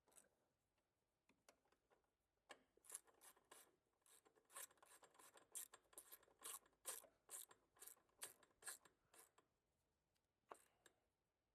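Faint, scattered clicks and scrapes of metal hand tools working a bolt, about two a second for several seconds, against near silence.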